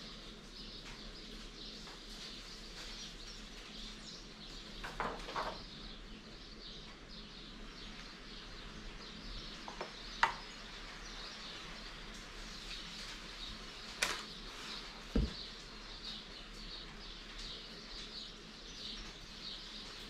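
Birds chirping outside, a continuous chorus of many small high chirps. A few sharp clicks and a short low thump break in between about ten and fifteen seconds in.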